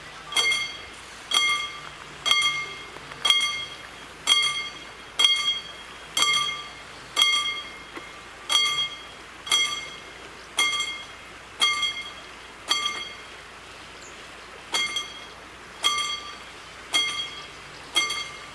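Level crossing warning bell striking about once a second, each stroke ringing briefly, with one skipped beat about two-thirds of the way in. It warns that a train is approaching and the barriers are about to come down.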